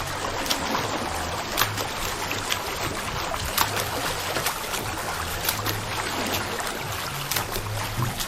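Water pouring and splashing continuously, a steady rush with many small splashes, over background music whose low bass notes change every second or so.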